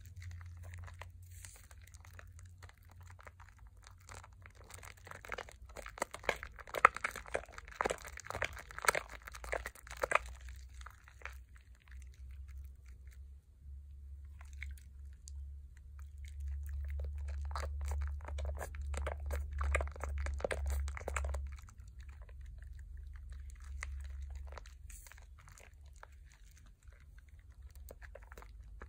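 Hands squeezing and rubbing thick foam lathered from a Pears soap bar, a wet squelching crackle of bursting bubbles. The crackling comes in two dense spells, about five seconds in and again past the middle, over a low steady hum.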